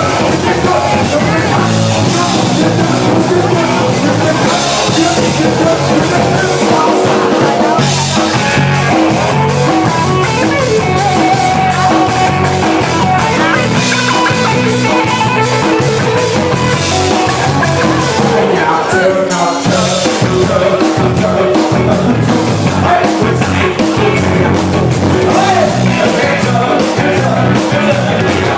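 Rock music with electric guitar and a drum kit playing a steady beat, with some singing.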